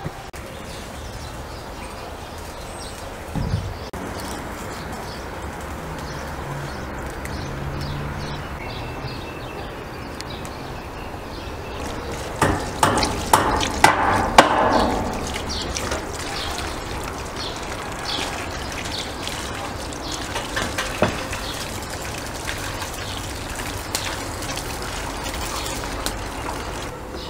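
Running water pouring over tomatoes and greens in a wicker basket as hands rub and rinse them. The splashing and knocking are loudest about halfway through.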